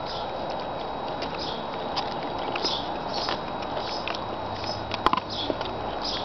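Alaskan Malamute chewing and gnawing a raw bone: irregular sharp crunches and cracks of teeth on bone, the loudest a couple of quick cracks about five seconds in.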